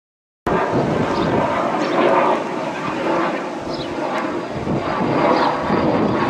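Fixed-wing aircraft flying over, its engine noise loud and fairly steady, cutting in abruptly about half a second in.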